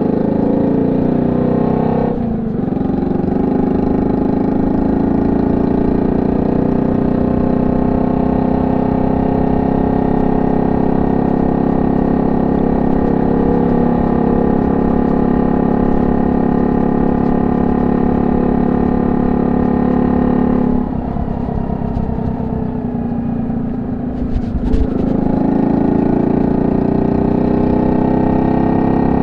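Honda C70's single-cylinder four-stroke engine running through a banana-type aftermarket exhaust, held at a steady speed. About 21 seconds in the throttle eases off for a few seconds. A sharp click comes near the 25-second mark, and the engine then picks up again.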